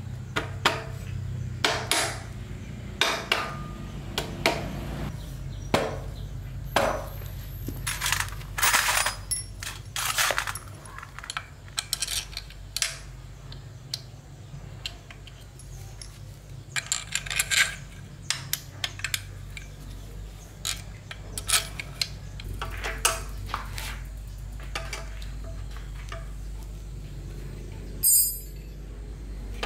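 Metal tools and small metal parts clinking and knocking against each other as they are handled during work on an old petrol generator, with irregular sharp taps over a low steady hum. Near the end there is a short, loud hissing burst.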